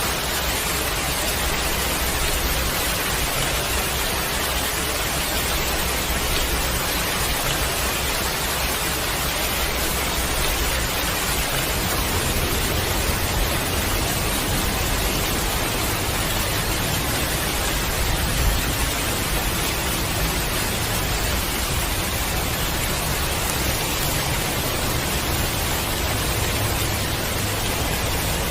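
Heavy rain falling steadily: a dense, even hiss with a low rumble beneath it.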